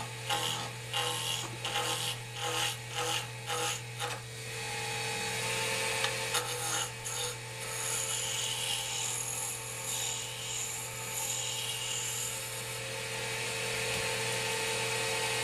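Wood lathe running with a steady motor hum while a spindle roughing gouge cuts the spinning wooden spindle blank to round. There are about two short scraping cuts a second for the first four seconds, then a continuous shaving cut.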